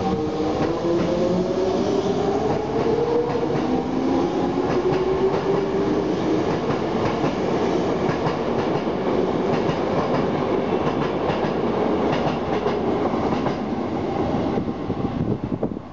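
Toei 5300 series electric train pulling out, its motor whine climbing in pitch over the first several seconds as it speeds up. It then gives way to the rumble and clatter of the wheels on the rails.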